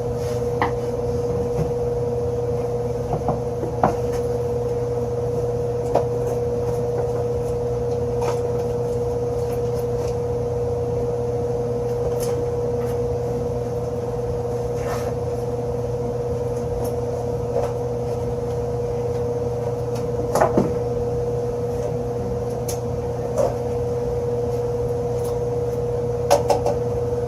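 Steady electrical machine hum holding one even tone, with scattered light knocks and clicks from parts and tools being handled.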